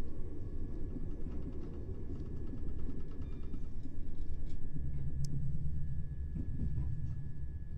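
Interior of a Class 377 Electrostar electric multiple unit on the move: low rumble of wheels and running gear on the track, louder around the middle, with a faint steady high whine and a few light clicks.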